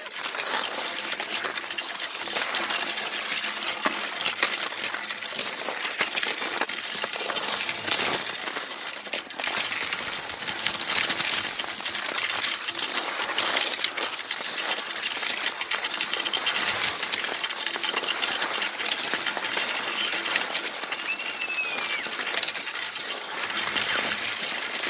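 Cross-country skis sliding and scraping over packed snow, with ski poles crunching into it, in an uneven stream of crunches and scrapes.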